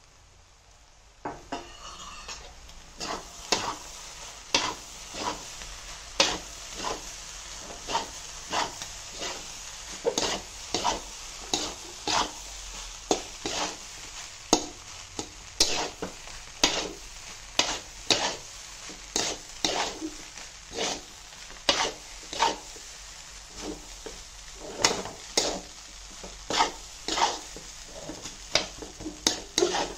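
Fried rice sizzling in a large hammered metal pan as it is stir-fried, a metal spatula scraping and knocking against the pan at every stroke, about one or two strokes a second. The frying starts about a second in.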